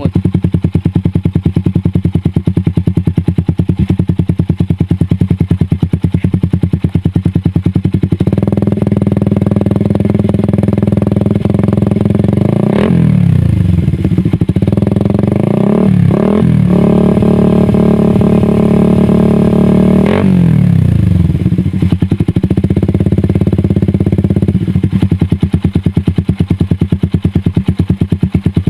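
Suzuki Satria F150 fuel-injected single-cylinder engine running through a 3Tech Ronin Katana full-system aftermarket exhaust: idling with a fast, even pulse, then revved up and held for several seconds from about eight seconds in, with a few quick throttle blips in the middle, before dropping back to idle near the end.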